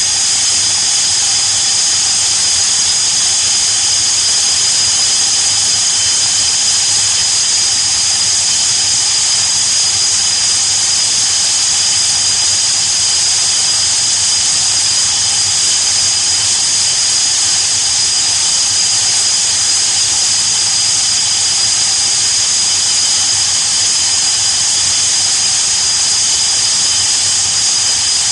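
MiG-21UM's turbojet engine running steadily at ground idle: a constant high-pitched whine with hiss.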